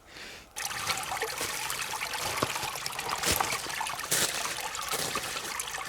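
A small forest brook trickling steadily. It cuts in abruptly about half a second in.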